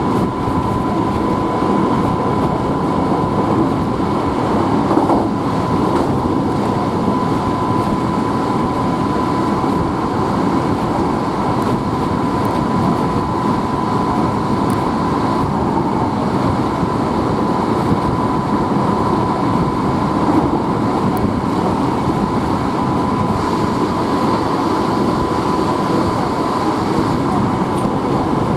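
Hankyu Kyoto Line electric train running steadily: an even rumble of wheels on track with a thin steady tone above it.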